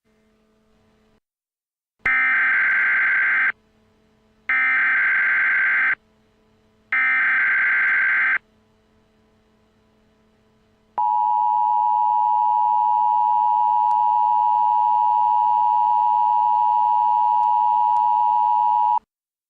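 Emergency Alert System header: three bursts of SAME data tones, each about a second and a half long and about a second apart. These are followed by the steady two-tone EAS attention signal, held for about eight seconds before it cuts off.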